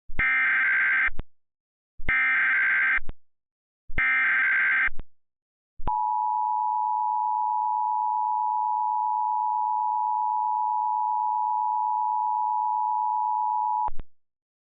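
Emergency Alert System SAME header: three bursts of digital data tones, about a second each, followed by the EAS attention signal, a steady two-tone beep held for about eight seconds before cutting off.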